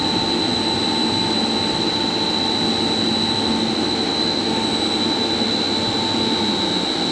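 Steady electrical machinery noise around a variable-frequency drive: a constant high-pitched whine with a fainter, higher whistle over a steady low hum and rushing, unchanging in level.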